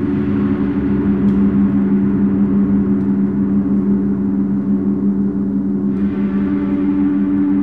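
Experimental noise drone score: several low tones held steady over a hiss, with a faint click about a second in and another near six seconds.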